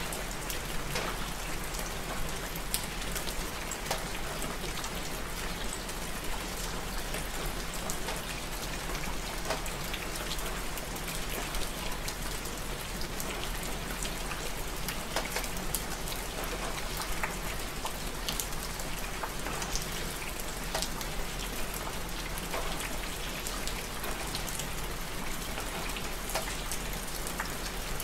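Steady rain falling, an even hiss dotted with many sharp ticks of single drops striking.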